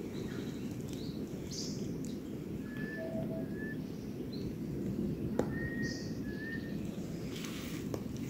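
Wild birds calling: short whistled notes repeated every second or so, with scattered higher chirps, over a steady low rumble of background noise. Two faint clicks come in the second half.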